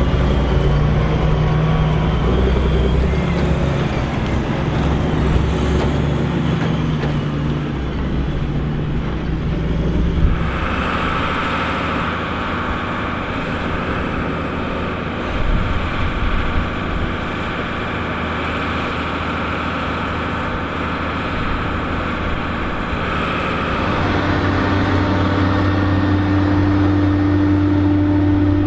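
Farm tractor engines running steadily, the engine note changing abruptly about ten seconds in and again near the end.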